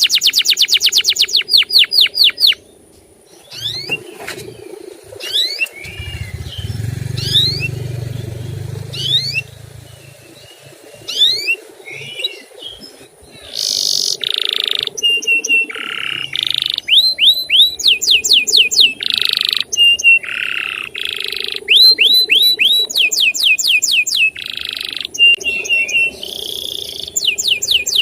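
Male canary singing a long, varied song: very fast rattling trills, rising chirps and buzzy held notes alternating with one another.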